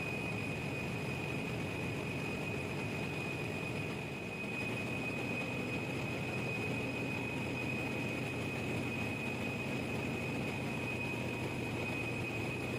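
Steady engine-room drone of an 18-megawatt Wärtsilä generator engine running, with a steady high whine over it.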